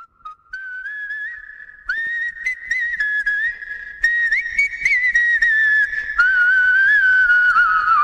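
A whistled tune in a few short phrases, a single high melody line with slight wavering, played as the background music of the edit.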